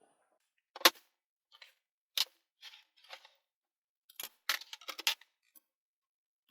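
Sharp clicks and light clatter of hand tools and metal printer parts being handled while the belt is freed from the build plate: one loud click about a second in, a few softer ones, then a quick cluster of clicks about four to five seconds in.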